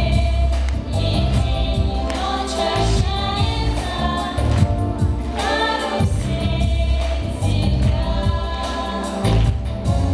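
Girls' voices singing together in unison over a recorded pop backing track with a steady bass pulse.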